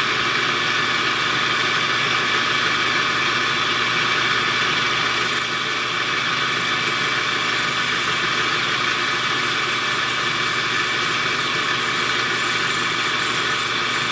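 Metal lathe running steadily at about 1400 RPM, spinning a glass test tube in a collet while a scribe is held against the glass to score a cut line. From about five seconds in, a thin high whine flickers on and off over the motor sound.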